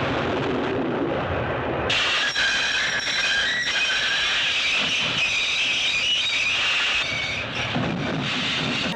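Train brakes squealing: a rolling rumble, then about two seconds in a shrill screech of several high tones sets in and holds, easing near the end.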